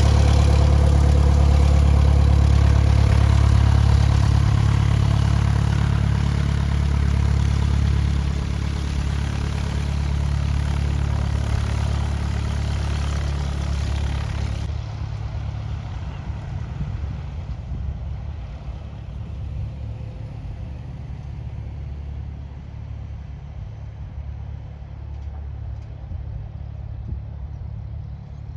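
Light propeller aircraft's piston engine running, loud at first and then slowly fading as the aircraft moves away.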